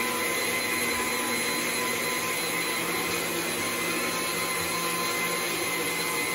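Countertop blender running steadily, its motor giving an even whine as it blends a jar of liquid cake batter.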